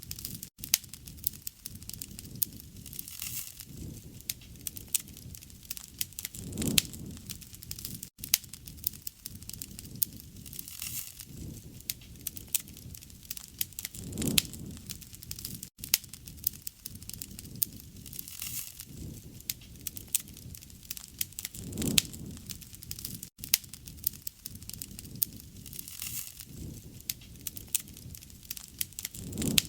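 Wood fire burning, crackling steadily with many sharp pops. A low soft swell comes about every seven and a half seconds.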